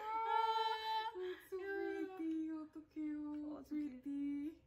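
A woman's voice quietly singing a slow run of long held notes, stepping down in pitch, with short breaks between them.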